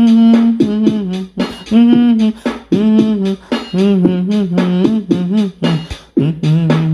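Background music: a vocal melody over a steady percussive beat.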